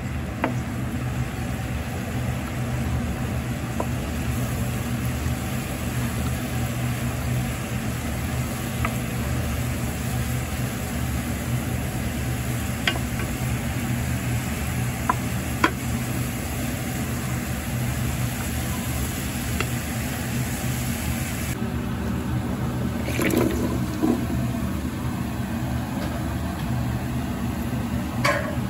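Minced garlic and chili flakes sizzling steadily in olive oil in a pot, the garlic-and-chili oil base for a pasta, with a few light taps of a wooden spatula. A steady low hum runs underneath.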